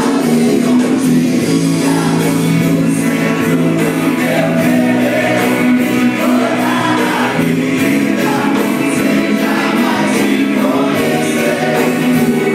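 Live Christian worship music: a group of singers over a steady band accompaniment, the voices holding long sung notes.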